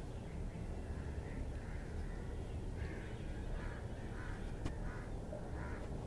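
A run of short, faint bird calls, about eight in quick succession from about a second in, over a steady low rumble, with a couple of sharp clicks.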